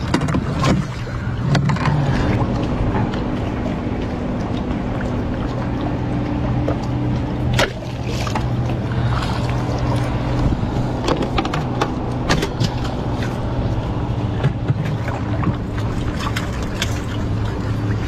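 A small boat's motor runs with a steady low hum, broken by sharp knocks and splashes from spearing a fish with a fork spear alongside the hull.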